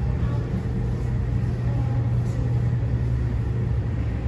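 A loud, steady low drone that does not change, with faint thin tones above it.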